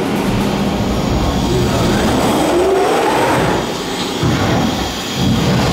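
Loud, steady rumbling sound effect from the simulated ride's sound system, with a tone gliding upward a little over two seconds in.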